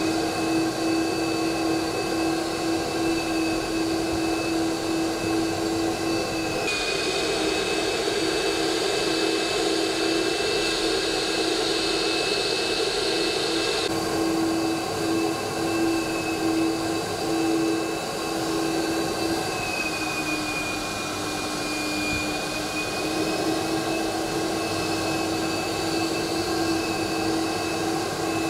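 Carpet extraction cleaner's vacuum motor running steadily with a constant whine over a hiss. For several seconds starting about a quarter of the way in, the hiss grows brighter, then settles back.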